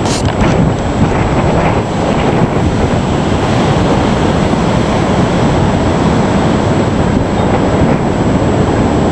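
Hurricane storm-surge waves surging and crashing, with strong wind buffeting the microphone: a loud, constant rumbling noise.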